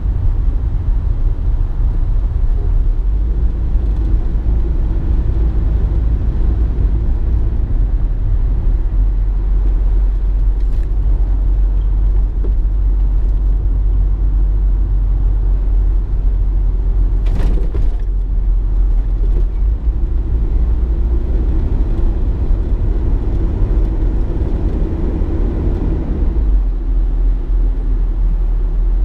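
Car on the move: a steady, loud low rumble of engine and road noise, with a brief sharp click or knock about halfway through.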